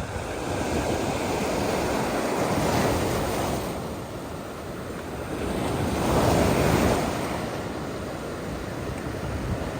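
Ocean surf breaking and washing up the beach, swelling twice: once early and again, louder, about two-thirds of the way through.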